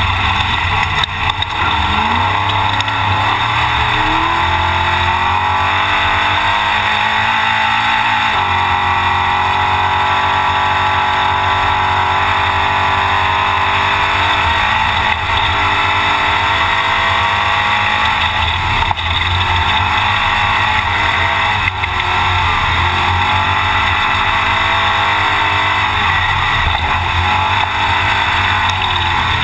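Off-road Trophy Truck engine at race pace, heard from inside the cab, revving up and down repeatedly as the throttle comes on and off, over heavy wind and rough-terrain road noise.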